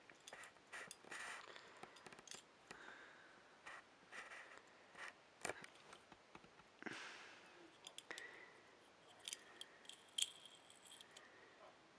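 Faint handling noise from a Disney Cars Luigi die-cast toy car being turned over in the fingers: scattered light clicks and brief rubs, with a short rustle about seven seconds in and a few clicks around ten seconds.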